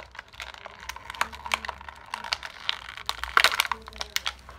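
Plastic packaging crinkling and small plastic toy parts clicking as a Beyblade is unpacked by hand, in irregular clicks and crackles that are loudest about three and a half seconds in.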